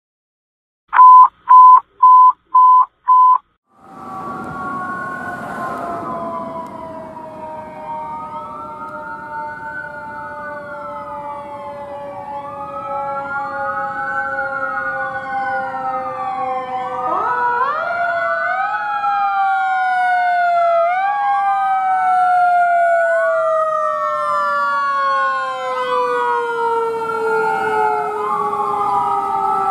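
Five short, loud, evenly spaced beeps, then fire-apparatus sirens: several electronic sirens wailing up and down, cycling faster for a few seconds midway, over long tones that slowly fall in pitch. The sirens grow louder as Orange City Fire Department Engine 6 and Rescue 6 approach.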